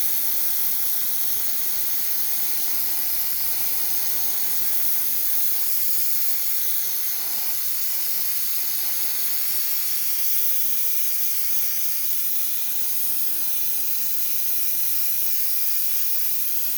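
Steady hiss of paint being sprayed, coating a model's base in dark blue; it cuts off suddenly just after the end.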